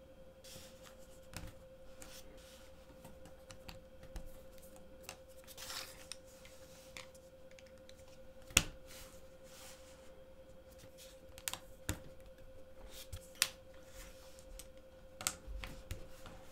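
LEGO plates clicking and rattling as a hinged plate build is flexed and turned by hand: scattered light clicks with one sharp click about halfway through, over a faint steady hum.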